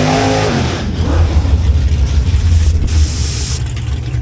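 Car engine running with a deep, steady low rumble after a brief falling note at the start. A short hiss comes about three seconds in.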